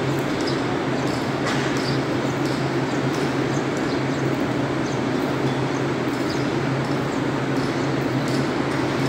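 Steady low mechanical hum, like an engine running, unchanging throughout, with a few faint high chirps over it.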